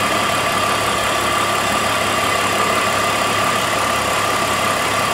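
BMW six-cylinder engine idling steadily, with a thin steady high whine over it. The oil cap has been refitted after a simulated vacuum leak, and the idle is settling back from lean to normal mixture.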